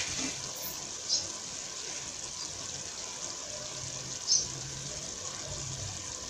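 Pot of chopped sweet potato leaves (matembele) boiling in the water they have given off, a steady hiss, with two short clicks, about a second in and again about four seconds in.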